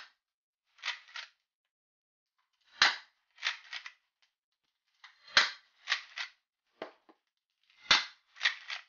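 Marushin M1887 lever-action gas airsoft shotgun firing 8mm BBs on green gas: four sharp pops about two and a half seconds apart. Each pop is followed by a quick double or triple clack as the lever is worked to eject the shell and chamber the next.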